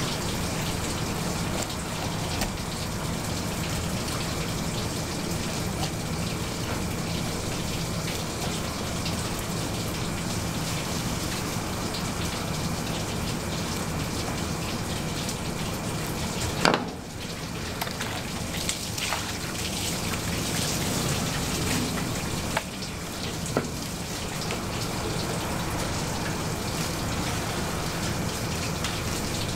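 Steady hiss of running or splashing water, with a few sharp knocks in the second half.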